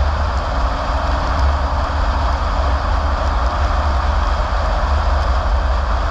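Car driving at a steady speed on a paved road: a constant low rumble of engine and road noise with an even hiss of tyres and air.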